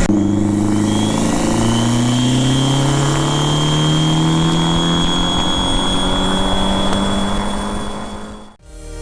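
Fiat 500 Turbo's turbocharged four-cylinder engine pulling hard at full throttle, its pitch rising steadily through a long gear. The sound fades out near the end.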